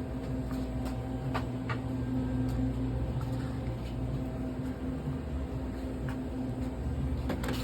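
Steady low machine hum in a small room, with a few faint clicks.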